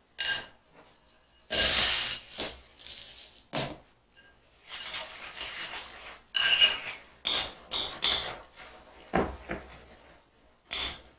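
A utensil stirring dry Cheerios into sticky melted marshmallow in a bowl: irregular scraping strokes and knocks against the bowl, some with a short ringing, coming in bursts with brief pauses.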